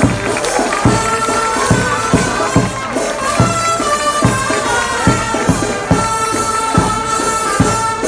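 Festive music: a sustained melody line over a steady drum beat of a bit over two strikes a second.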